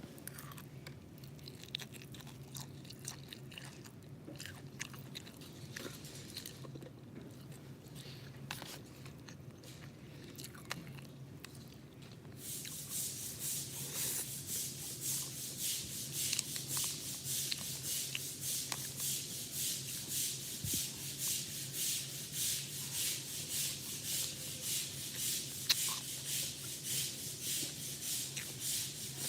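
Close-miked chewing of fried eggs. Faint mouth clicks at first, then from about twelve seconds in a louder, rhythmic chewing about twice a second, over a steady low hum.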